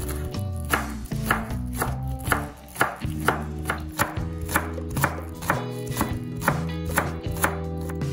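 Santoku knife slicing spring onion greens on a bamboo cutting board: crisp cuts about two a second, each ending in a tap of the blade on the board.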